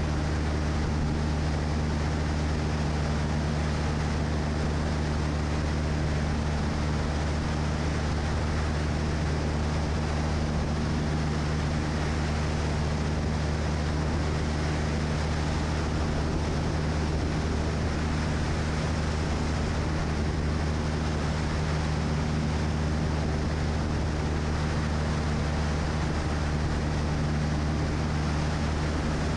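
Light aircraft's engine and propeller droning steadily in level cruise, with an even rush of airflow.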